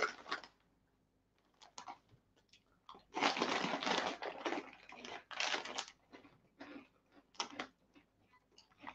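A plastic snack bag crinkling as it is handled and reached into. There are two longer rustles about three and five seconds in, with scattered small crackles and crunches of caramel corn puffs being chewed between them.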